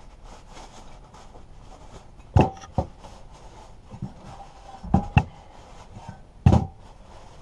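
A lawnmower engine's metal shroud being handled and wiped down on a wooden table, with about five sharp knocks of the engine shifting against the wood, the loudest about two and a half seconds in and near the end.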